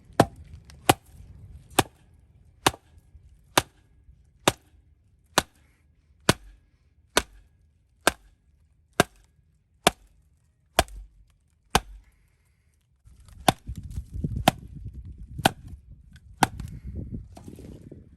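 Axe chopping into wood in a steady rhythm, about one sharp strike a second, with a short pause about twelve seconds in.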